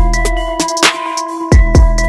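Electronic background music with deep kick drums that drop in pitch and sharp snare hits over held synth tones.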